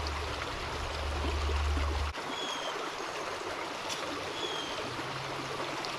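Small creek running steadily over its bed, a constant rushing hiss of water. A low rumble under it cuts off abruptly about two seconds in.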